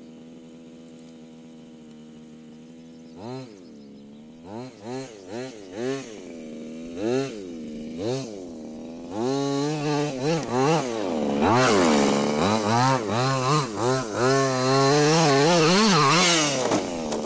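HPI Baja 5T's small two-stroke petrol engine idling steadily, then revved in quick throttle blips that rise and fall in pitch, coming faster and faster and building to longer full-throttle runs near the end.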